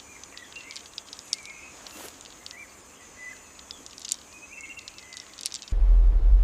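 Quiet outdoor ambience of scattered ticks and faint insect- or bird-like chirps. Near the end, a loud, deep rumble starts suddenly.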